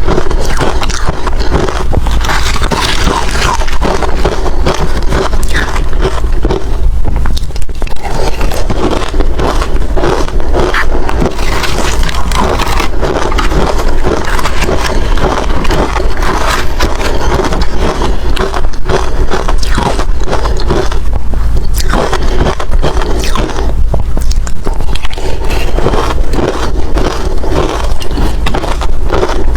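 Hard ice being bitten and chewed close to the microphone: a continuous run of loud, crackling crunches, with a few short breaks between mouthfuls.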